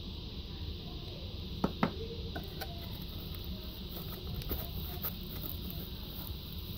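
Hands handling a GoPro camera and its packaging: two sharp clicks close together about two seconds in, then small scattered ticks and scrapes as fingers work at the camera in its foam insert, over a steady background hum.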